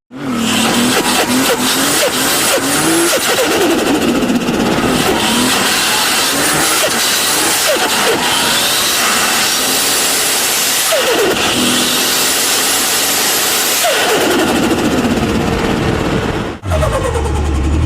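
Turbocharged car engine revving again and again, with a turbo whistle rising under each rev and the pitch falling away as the throttle closes. Near the end the sound cuts abruptly to another engine.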